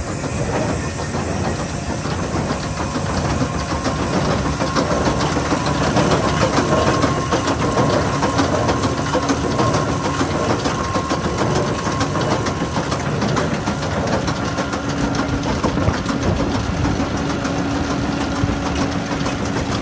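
Solberg baler running steadily: engine noise with a rapid, continuous mechanical clatter.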